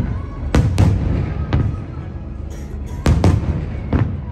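Aerial firework shells bursting in a string of about seven sharp bangs, some in quick pairs, over a steady low rumble.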